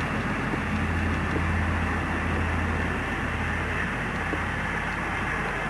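Steady hiss with a low rumble underneath, no distinct event; the rumble fades about four seconds in.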